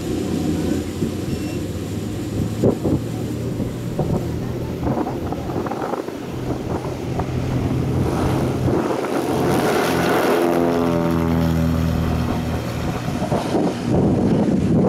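Cessna 182A Skylane's six-cylinder Continental O-470 engine and propeller running at full takeoff power during the takeoff roll, growing louder as the plane approaches. About ten seconds in, the pitch slides down as the aircraft passes and draws away.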